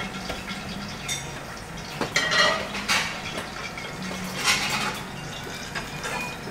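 Plates and cutlery clinking in a kitchen: a handful of short separate clinks, roughly a second apart, over a steady low hum.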